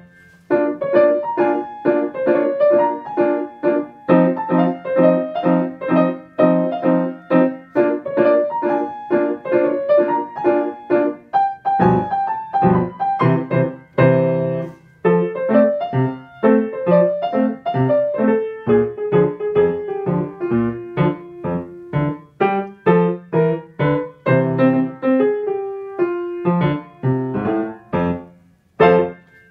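Yamaha grand piano played solo: a steady stream of quick notes and chords, closing on a last struck chord about a second before the end that rings away.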